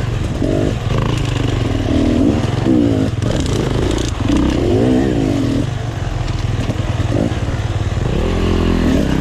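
Enduro dirt-bike engines running, with a steady low drone and one engine revving up and down several times under the throttle, the pitch rising and falling most clearly about halfway through and again near the end.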